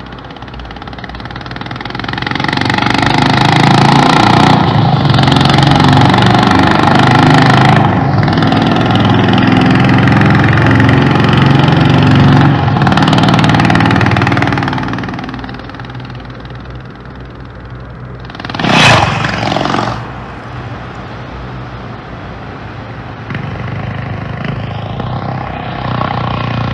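Honda H'ness CB350's single-cylinder engine running and revving, the exhaust note from Honda's teaser. It is loudest for about twelve seconds from a couple of seconds in, then quieter, with one sudden loud burst about nineteen seconds in.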